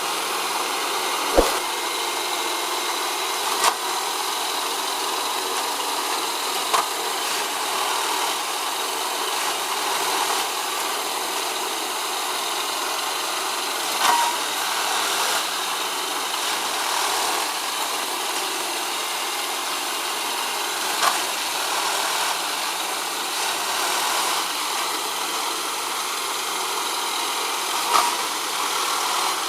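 Railway tamping machine running steadily, its engine a constant mechanical noise, with a sharp knock now and then, about six over the stretch.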